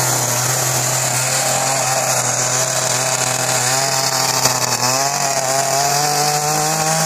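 Chainsaw running at high revs while carving wood, its engine pitch stepping up about five seconds in.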